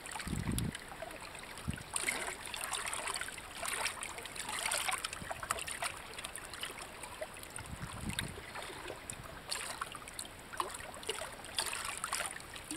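Shallow stream water trickling and splashing over rocks, a steady crackling wash. A few dull low thumps come near the start and again about eight seconds in.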